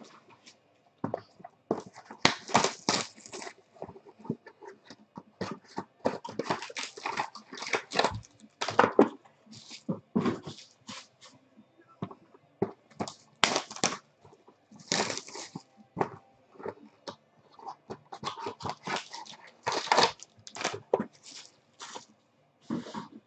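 Cardboard trading-card boxes being handled and opened while foil-wrapped card packs are pulled out and crinkle: an irregular run of rustles, scrapes and crinkles.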